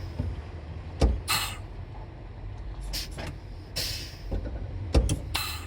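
Air-operated range splitter on a KamAZ truck gearbox shifting: a sharp clunk about a second in and again near the end, each followed by a short hiss of released air, with another hiss near four seconds. The splitter is working, its air hoses connected correctly.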